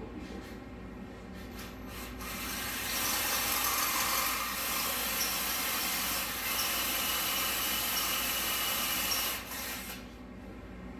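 Cordless drill boring a hole into the front of an LS engine's water pump housing. The bit cuts metal steadily from about two seconds in and stops about a second before the end.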